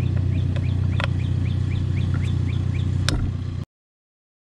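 A brush chipper's engine running steadily, with a bird chirping rapidly over it, about four chirps a second, and two sharp metallic clicks of a Torx key on the derby cover screws. The sound cuts off suddenly to silence a little past three and a half seconds in.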